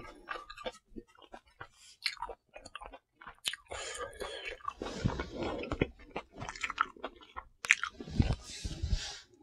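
Close-miked wet chewing of a mouthful of spicy stir-fried pork: irregular clicks and smacks throughout, growing denser and louder around the middle and again near the end.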